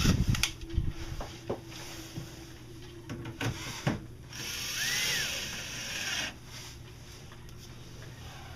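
A few clicks and knocks of screws and parts being handled, then a cordless drill-driver runs for about two seconds around the middle, speeding up and slowing down as it drives a screw.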